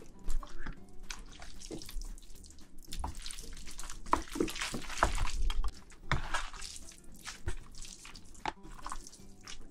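Chopsticks mixing noodles through thick black bean sauce in a ceramic bowl: a dense run of wet, sticky squelches and sharp little clicks.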